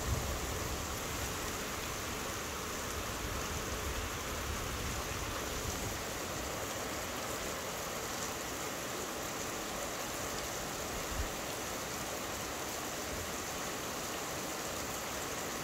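Steady rain falling in a thunderstorm. A low thunder rumble dies away over the first couple of seconds.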